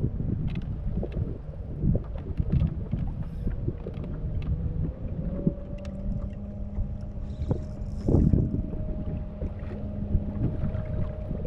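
Wind buffeting the microphone on a small fishing boat, with a steady motor hum that steps up slightly in pitch about five seconds in and scattered knocks against the hull.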